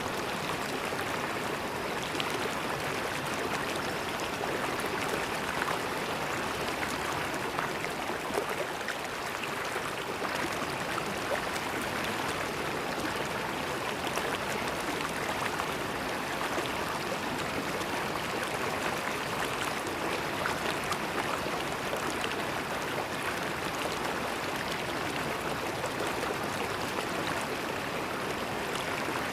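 Steady rush and babble of a flowing river, with small splashes and gurgles mixed into the even flow.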